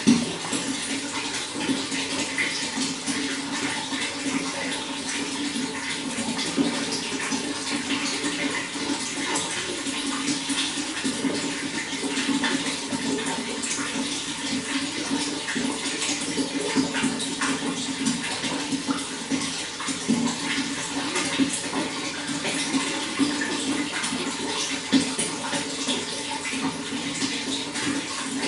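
Running water flowing and splashing steadily, a dense patter of small splashes over an even rush.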